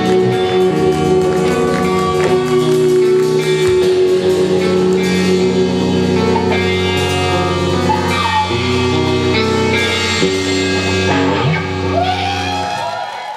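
Rock band playing live, with electric guitar over drums and sustained notes; the sound drops away near the end.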